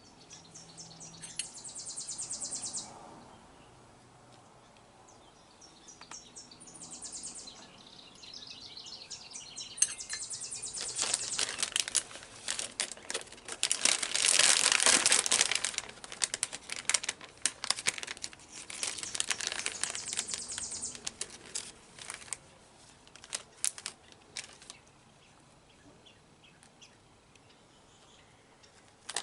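Crinkling and rustling of packaging being handled: a long run of rapid crackles that builds about ten seconds in, is loudest midway and dies away.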